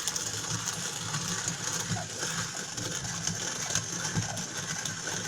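Hand-cranked coffee mill grinding coffee beans: a steady crunching, ratcheting rattle as the crank turns.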